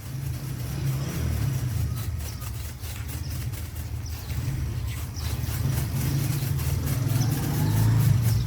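A motor vehicle's engine running: a steady low rumble that swells in over the first second, with faint scattered clicks above it.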